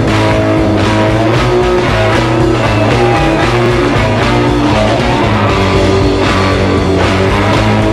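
Rock music with electric guitars and drums playing an instrumental passage without vocals, at an even, loud level.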